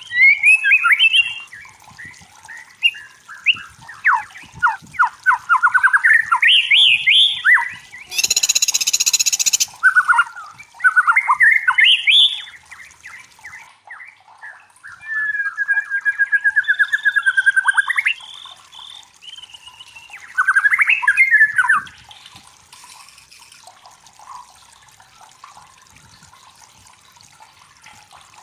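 White-rumped shama singing: varied loud whistled phrases and rapid trills, with a harsh, noisy rasp about eight seconds in. The song stops a little after twenty seconds in.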